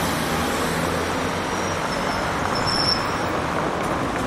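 Steady city street traffic noise, with a faint high-pitched squeal for about a second and a half in the middle.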